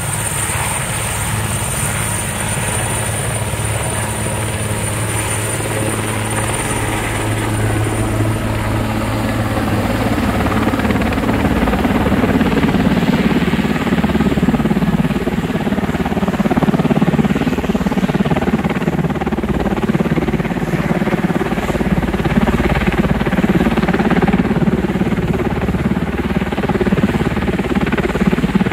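Turbine helicopter taking off and climbing overhead with a long line slung beneath it. A high, steady turbine whine fades after about ten seconds as the rotor noise grows louder and rougher.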